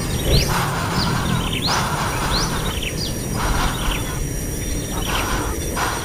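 Small birds chirping in quick, short sweeping notes, several a second, over a steady low rumble and bursts of hiss.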